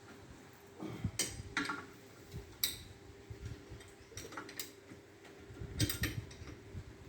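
Metal hand tools clinking and knocking against engine parts during engine disassembly: a handful of sharp, irregular clinks over a faint steady hum.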